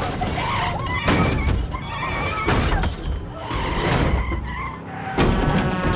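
Film soundtrack of a car swerving and skidding hard, with sharp knocks as the passenger is thrown against the inside of the car, several of them, and a woman's screams under the noise.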